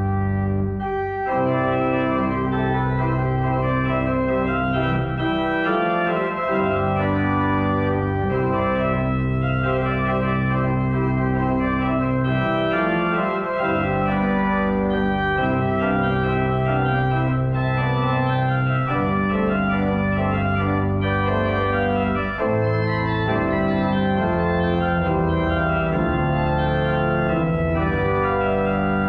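Organ playing full, held chords over a deep bass, the harmony changing every few seconds: the postlude closing a church service.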